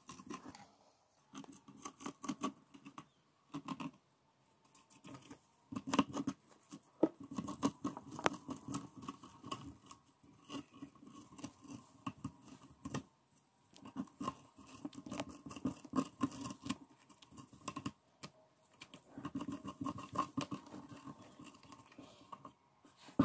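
Hamster digging and scratching through shredded paper bedding inside a cardboard tube: dry rustling and scratching in bursts of a few seconds, with short pauses between.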